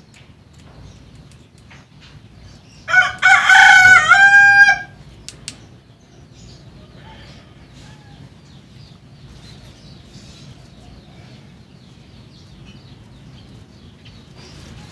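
A rooster crows once, loud, for about two seconds, starting about three seconds in, its call stepping in pitch and ending on a held note.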